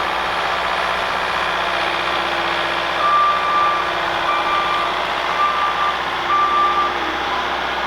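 Skid steer loader's engine running steadily, with its backup alarm beeping four times, about once a second, starting about three seconds in: the machine is reversing.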